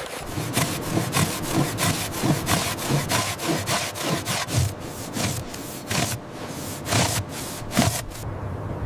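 Quick rhythmic scraping crunches, about three a second, over a steady hiss.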